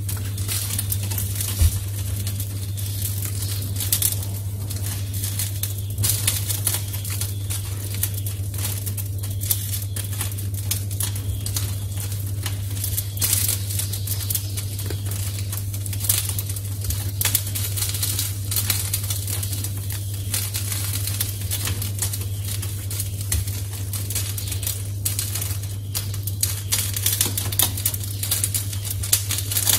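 A metal spoon scraping up minced pork and packing it into a hollowed bitter melon, with frequent small clicks of the spoon and wet, crackly squishing of the meat, over a steady low hum.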